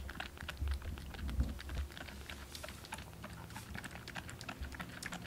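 A young kitten sucking milk from a feeding bottle's teat, making a quick run of small wet clicks and smacks. A low rumble runs under the first couple of seconds.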